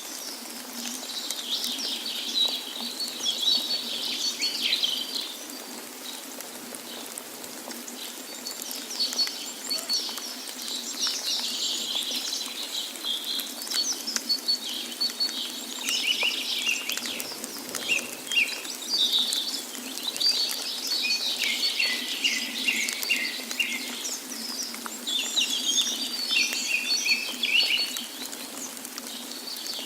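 Several wild songbirds chirping and trilling in a forest chorus, in quick repeated phrases, over a faint steady hiss.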